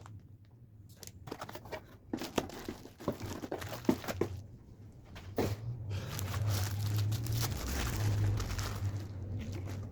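Packaging being handled: irregular crinkling and rustling, with scattered crackles at first and denser continuous rustling from about six seconds in, over a low steady hum.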